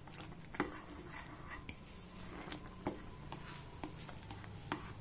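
Thick tomato ketchup simmering in a pan and being stirred with a spoon: faint, scattered sharp pops as bubbles burst in the thickened sauce, with light stirring.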